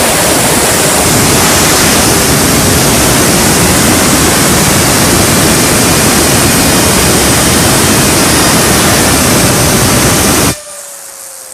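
Compressed air from an air compressor's blow nozzle hissing loudly at a fidget spinner for about ten seconds, then cutting off suddenly. The fidget spinner is left whirring on its own, a faint tone slowly falling in pitch as it spins down.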